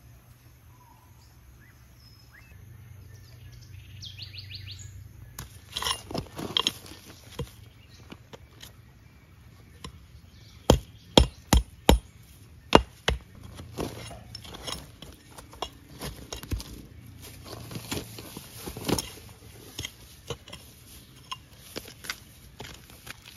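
Small hatchet chopping into soil and weed roots: repeated sharp strikes starting about five seconds in, with a quick run of five loud blows about halfway through and lighter, irregular chops after that.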